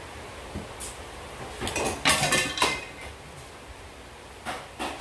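Hard parts clattering and clinking together, a quick run of knocks about two seconds in, then two short knocks near the end: a screwdriver and TV stand foot being handled against the TV's back panel.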